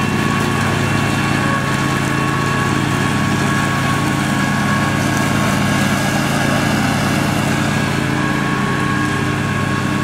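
Troy-Bilt garden tractor's 14 horsepower Briggs & Stratton Vanguard V-twin engine running steadily at an even pitch.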